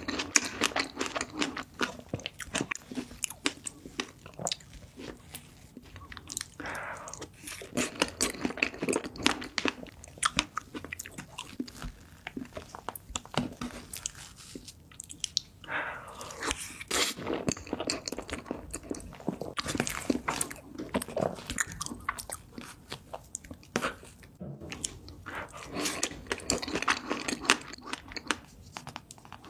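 A person chewing cake with many small wet mouth clicks and smacks, in an irregular stream with short louder spells.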